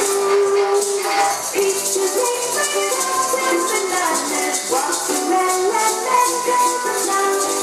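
Samba-style music: a melody of held notes over a busy, steady shaker rhythm.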